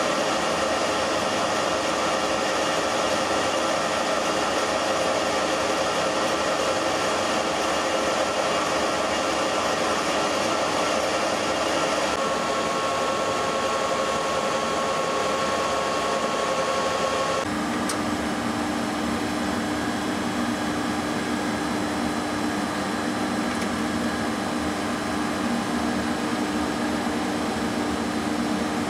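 Okuma LC50 CNC lathe running with a steady mechanical hum and whine. A higher whine joins about twelve seconds in, and about seventeen seconds in the tones change abruptly to a lower whine, as the machine's running changes.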